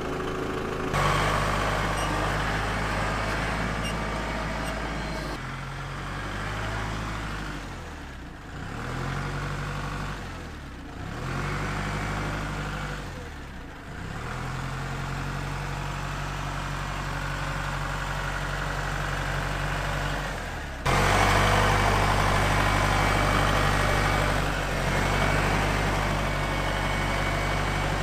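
Kubota L-series compact tractor's diesel engine running while the tractor is driven. Its engine speed dips and recovers three times in the middle, and the sound turns suddenly louder about three quarters of the way through.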